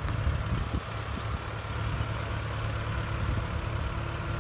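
Mahindra tractor's diesel engine running steadily with a low hum while the tractor pulls a potato planter across the field.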